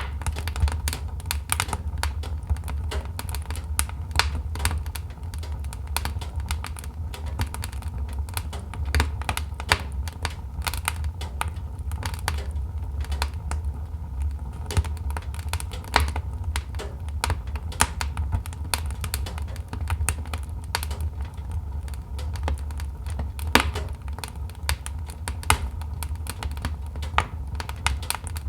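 Wood logs burning in a fireplace, crackling with dense, irregular pops and snaps over a steady low rumble from the fire.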